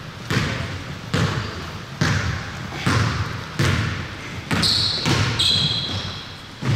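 A basketball being dribbled, a steady run of about eight bounces a little faster than one a second, each with a short echo. About two-thirds of the way through, sneakers squeak on the court twice.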